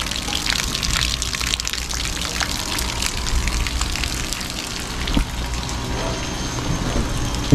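Water from a pressure washer spattering and running off an RV roof: a steady, rain-like splashing with a low hum underneath.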